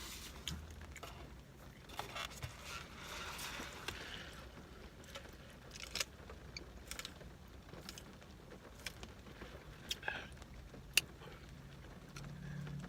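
Close-up mouth sounds of eating: chewing and lip smacking, with scattered sharp clicks and smacks. A low burp begins near the end.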